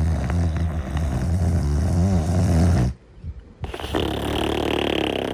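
Snoring: one long, loud, low snore lasting about three seconds, then a brief pause and a rougher, breathier snoring breath.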